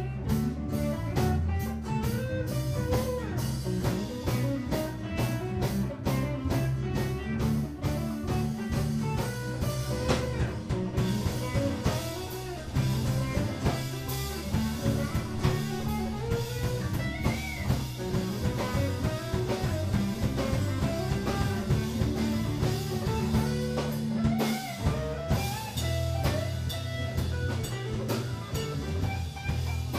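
Live band playing: electric bass, electric and acoustic guitars over a drum kit keeping a steady beat.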